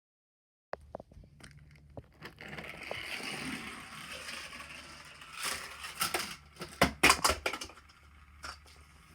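Rustling handling noises and scattered clicks, then a cluster of sharp knocks and clatters.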